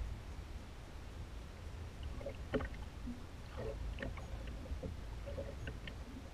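Sounds aboard a small fishing boat on the water: a steady low rumble with a scattering of small knocks and clicks from about two seconds in.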